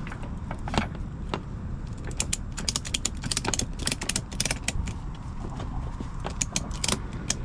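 Ratchet tie-down strap being tightened: a run of sharp metallic clicks from the ratchet mechanism, quickest in the middle, over a steady low rumble.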